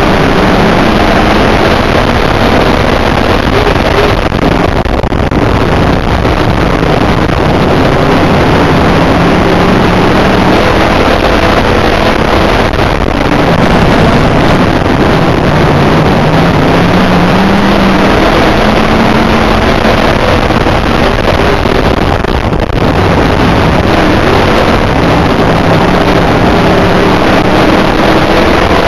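IMCA dirt modified race car's V8 engine running hard, heard from inside the car, its note rising and falling with brief dips about every eight to nine seconds as it goes around the oval.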